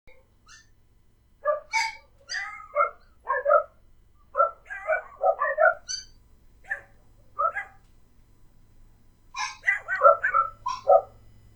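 Dogs barking in short, irregular bursts of several barks each, with brief pauses between the bursts.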